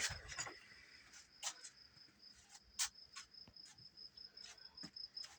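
A steady, high-pitched trill of rapid pulses, insect-like, with several short soft clicks scattered through it.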